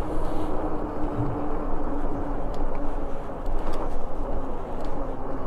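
E-bike riding along a road: wind rushing over the microphone and tyre noise, with a steady hum running through it and a few faint clicks.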